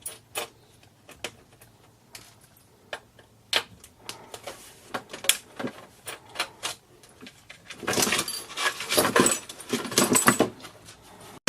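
Scattered clicks and knocks of small plastic and metal parts of a clock radio being handled and pulled apart, turning into a busier clatter about eight seconds in.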